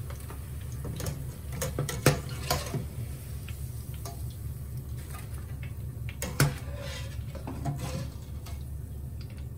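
Metal wire spider skimmer clinking and knocking against the rim and sides of a stainless steel pot as fried chips are scooped out of the hot oil, a scattered run of sharp clicks with two louder knocks about two seconds in and about six and a half seconds in, over a steady low hum.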